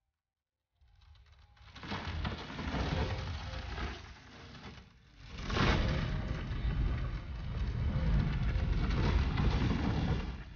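Film sound effects: a dense rumbling noise that swells up about a second in, dips briefly near the middle, then surges sharply and stays loud.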